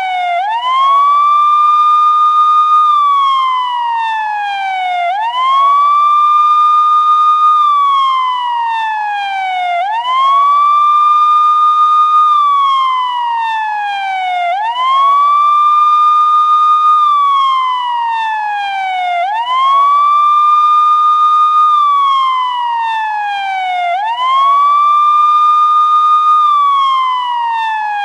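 Police siren sounding a slow wail. The pitch sweeps quickly up, holds high for about two seconds, then slides steadily down, repeating about every five seconds.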